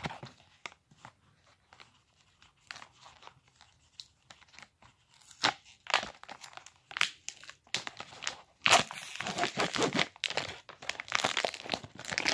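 Plastic wrapper of a meat snack stick being crinkled and torn open: scattered crackles at first, then dense, louder crinkling and tearing from about two-thirds of the way in.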